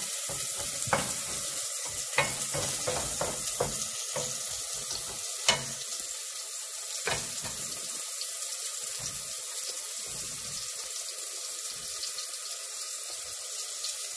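Tomato-masala gravy sizzling steadily in a frying pan, with a wooden spatula scraping and knocking against the pan a few times in the first seven seconds. Later, sliced mushrooms are dropped into the pan by hand.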